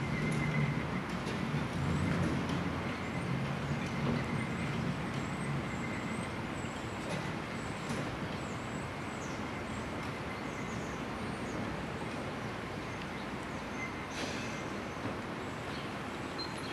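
PCC streetcar rolling slowly along its track, with a low hum from the car that is strongest for the first few seconds and then fades under a steady background rush.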